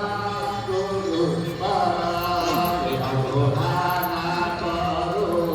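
Devotional chanting: a melodic mantra sung with long held notes that step between pitches, with a rising slide about one and a half seconds in.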